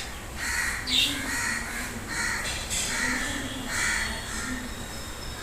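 A crow cawing repeatedly, about six harsh caws in a row, each under a second apart.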